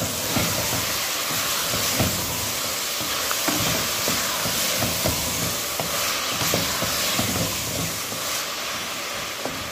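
Onions and freshly added diced tomatoes sizzling in oil in a pressure cooker pot, stirred with a wooden spoon that scrapes and knocks against the pot.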